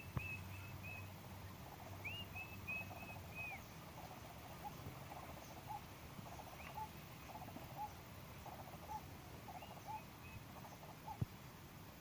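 Birds calling outdoors: two quick runs of short, high, arched notes in the first few seconds, with a few more later. Under them a lower call repeats about once a second through the middle.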